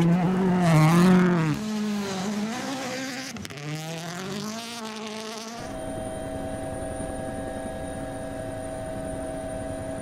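Ford Puma Rally1 rally car's turbocharged engine revving hard as it passes close, its pitch rising and falling with gear changes and lifts, loudest about a second in. About five and a half seconds in the sound cuts to a steady, even drone.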